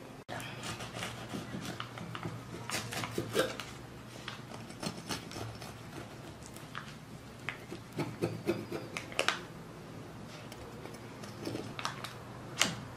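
Serrated knife sawing through the crust and paper baking mould of a panettone, with irregular scrapes and clicks and a sharper knock near the end.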